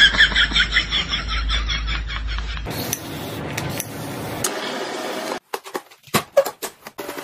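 A person laughing with a quick pulsing rhythm, which cuts off after about two and a half seconds. Then comes the fine hiss of a trigger spray bottle misting, and near the end a few sharp clicks as the plastic parts of a cordless stick vacuum are snapped together.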